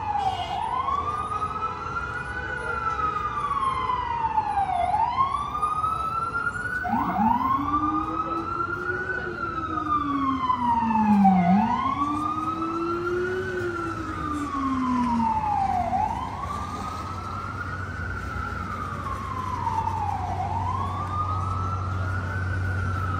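Emergency vehicle siren on a slow wail, its pitch rising and falling about every four and a half seconds. A second, much lower wailing tone follows the same up-and-down for several seconds in the middle, and a steady low hum comes in during the second half.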